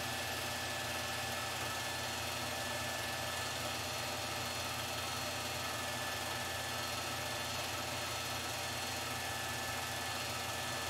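Film projector running: a steady motor hum with hiss and faint constant tones, unchanging throughout.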